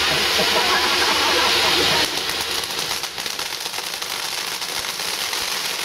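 Ground firework fountains spraying sparks with a loud, steady hiss, people's voices calling over it. About two seconds in the hiss cuts off abruptly and a fainter, dense crackling takes over.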